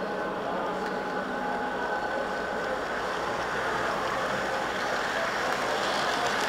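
HO-scale model train running along the track, heard from a camera riding on it: a steady rolling noise of the wheels on the rails, with a faint high whine during the first half, growing slightly louder toward the end.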